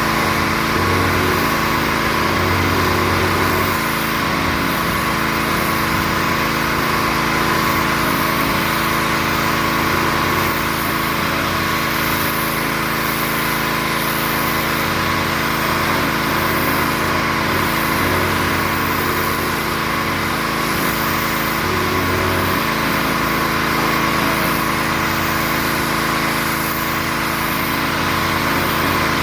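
Gas-engine pressure washer running steadily, with a steady hiss over the engine note.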